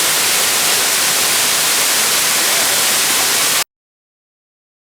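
Loud, steady rush of a waterfall's falling water, cutting off abruptly about three and a half seconds in.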